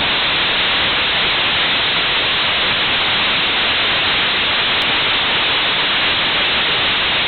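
Skyroot RAMAN upper-stage rocket engine in a hot-fire test, igniting abruptly and then firing steadily. Its exhaust makes a loud, constant rushing noise that does not change in pitch.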